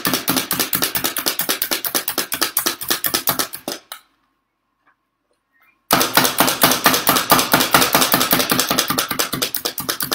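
Plunger-style food chopper pumped rapidly on chunks of chocolate bar: a fast, even run of strokes about six a second, stopping for about two seconds midway, then a second run.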